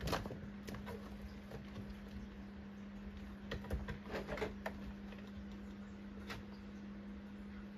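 A kitten's claws catching and scrabbling on a cat wall's climbing panel, scattered scratchy clicks with a busier flurry about four seconds in as it hauls itself up onto a wooden shelf. A steady low hum runs underneath.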